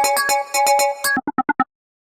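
An Android 15 AOSP ringtone: a quick electronic synth melody of short repeated notes. It stops about a second in, trails off in four short fading notes, then goes silent.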